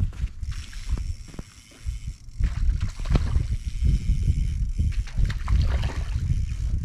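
Wind buffeting the microphone in gusts: an irregular low rumble that grows heavier about two and a half seconds in.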